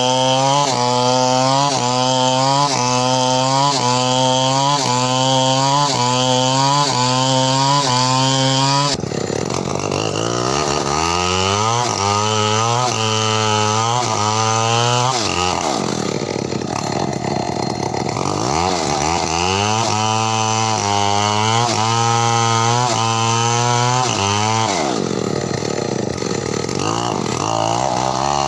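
New West two-stroke chainsaw engine running at high speed with a wavering pitch, then throttled down to a low speed and revved back up, twice.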